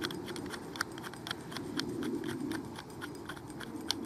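Irregular small metallic clicks and ticks, a few a second, as an LED pill is screwed by hand into the threaded head of a Night Saber Alpha torch, with one sharper click near the end.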